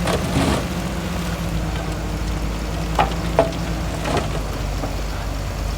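Heavy earthmoving machine's diesel engine running steadily under a crackling, gritty noise. A couple of sharp clacks come about three seconds in and a fainter knock a second later.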